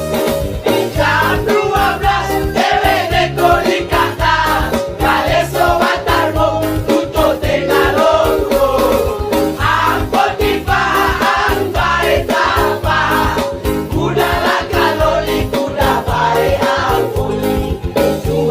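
Background music with a steady beat and a singing voice.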